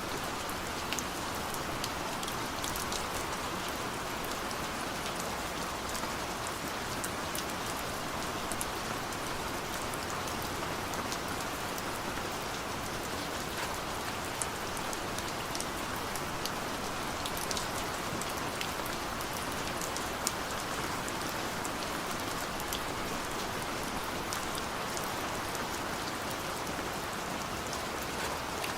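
Steady rain falling: an even hiss of rain, with many small, sharp drop ticks scattered through it.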